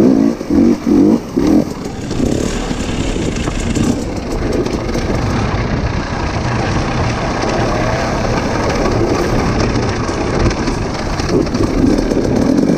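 Off-road vehicle engine revving in a few short blips, then running steadily, with the revs rising again near the end.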